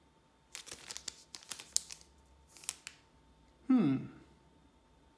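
Foil booster pack wrappers crinkling and rustling in the hands, in short clusters of crackles, followed near the end by a brief hum from a person's voice that falls in pitch.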